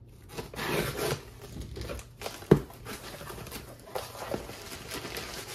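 A package being unboxed by hand: rustling and tearing of the packing, with one sharp knock about two and a half seconds in and lighter clicks after it.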